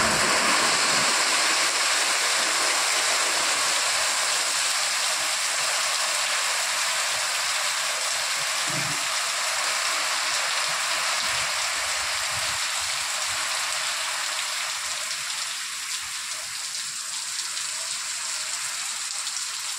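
Heavy rain pouring down in a windstorm, a steady rush of water on a flooded road, gradually easing a little toward the end.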